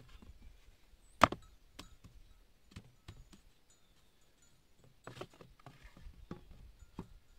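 Bamboo poles and slats knocking and clacking against each other as they are handled and fitted into place: one sharp clack about a second in, then scattered lighter knocks and a short run of taps around five seconds.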